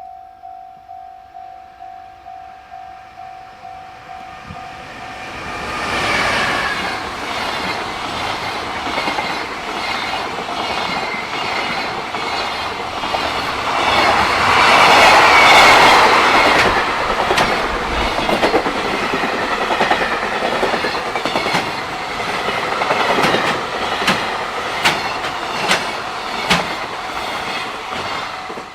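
Japanese railway level-crossing bell ringing in a steady ding-ding, about two strikes a second. About five seconds in, a JR Freight train arrives and passes close by, drowning the bell, its wagon wheels clicking over the rail joints. It is loudest about halfway through, and the clicks grow sparser near the end.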